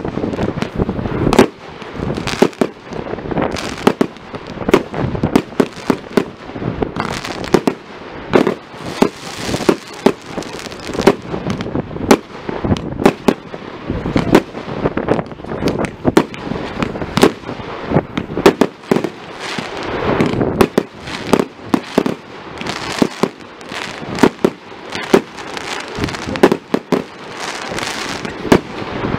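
Aerial fireworks bursting in a dense, continuous barrage: many sharp bangs and crackles a second over a rumbling background.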